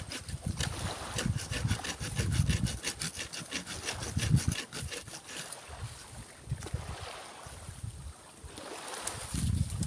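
Hand saw cutting santigi wood in quick, even strokes, about five a second, mostly in the first few seconds, with a few more strokes later. Wind gusts buffet the microphone.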